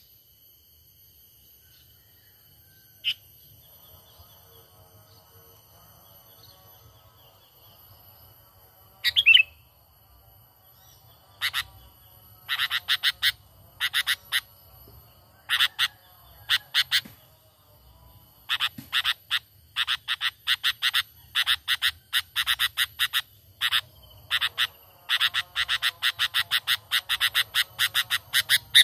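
Sooty-headed bulbul (kutilang) calls. After a quiet start there is one call about nine seconds in, then from about eleven seconds on come repeated runs of rapid notes that crowd closer together toward the end.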